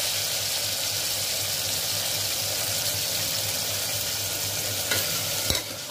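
Hot oil sizzling steadily in an aluminium pressure cooker around freshly added raw potato pieces, peas and green chillies, with a single sharp click near the end.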